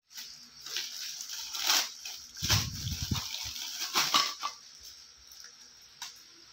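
Thin plastic toy packaging crinkling in irregular bursts as a bagged figure is handled and opened, with a brief low rumble of handling about two and a half seconds in.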